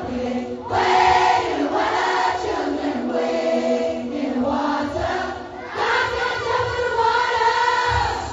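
Intro music: a choir singing, in a gospel style.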